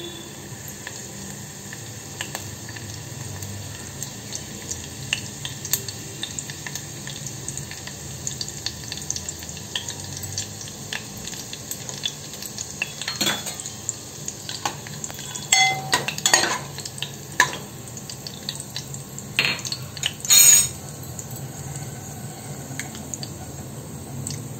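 Curry leaves sizzling in hot oil in a pot, with a steady hiss and many small crackles. In the second half come a few louder sharp sounds, the loudest about two-thirds of the way through.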